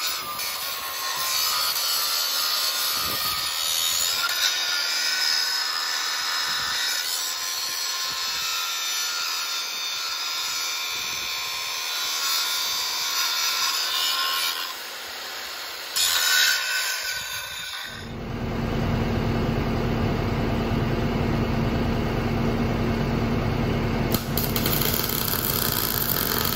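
Angle grinder with a flap disc grinding old welds off a steel top plate, with a short let-up around 15 seconds. After about 18 seconds the sound switches to a steady low buzzing hum as the top plate is welded back onto the steel post.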